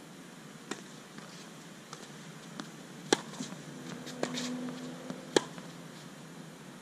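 Tennis ball struck by rackets in a rally on an outdoor hard court: two sharp, loud pops a little over two seconds apart, with fainter ticks of bounces and footsteps between them. A brief low hum sounds just before the second hit.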